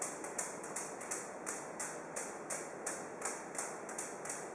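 Footsteps of a person walking at a brisk, even pace, about two steps a second, each a short scuff.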